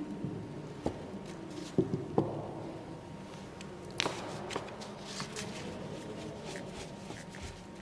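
Hands handling watercolour paper and painting tools on a tabletop: light rustling of the paper, with small knocks as brushes and jars are picked up and set down, two sharp ones about two seconds in and another about four seconds in.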